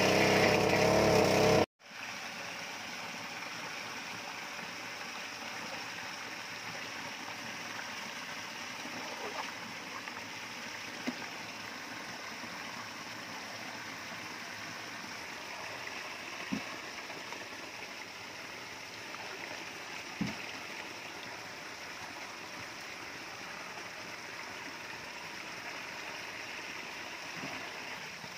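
For the first two seconds a pump's engine runs steadily, then it cuts off abruptly. After that water trickles and runs steadily, with a few faint splashes and knocks.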